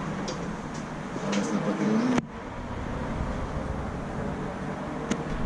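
A motor vehicle engine running nearby, its pitch wavering and rising slightly, cutting off suddenly about two seconds in and leaving a steady low background hum.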